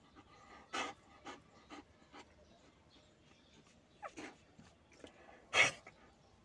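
German Shepherd breathing in short, noisy pants, about six over the few seconds, the loudest one near the end.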